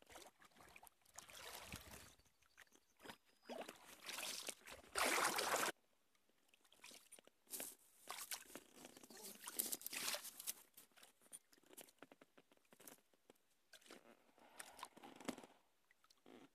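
Irregular rustling, scraping and knocking, with a louder rush of noise about five seconds in that cuts off suddenly.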